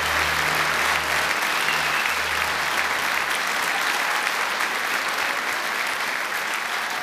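Audience applauding steadily after a live song ends. A low held note of the closing music fades out about three seconds in.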